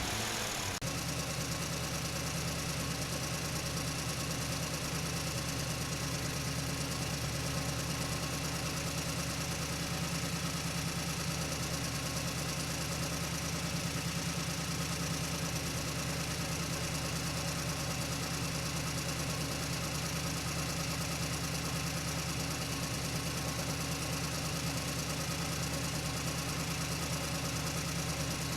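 An engine idling at a steady, unchanging speed, settling into an even hum about a second in.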